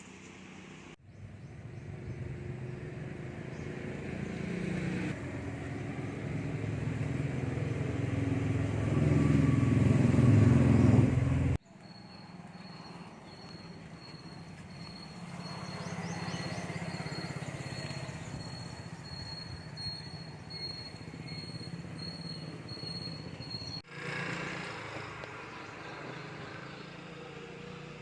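A motor vehicle's engine grows louder as it approaches and is cut off abruptly. A quieter outdoor background follows, with a high, rapidly pulsing note, and then another short clip of outdoor ambience.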